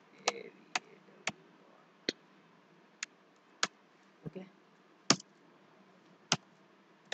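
Computer keyboard keys pressed one at a time in slow, uneven typing: about ten sharp clicks, each a second or so apart, with one duller knock a little past the middle.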